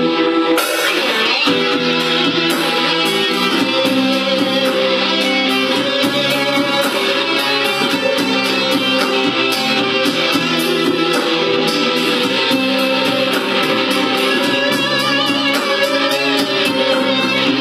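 Instrumental break of a Malay rock song: electric guitar over a band backing with a steady beat, with no singing.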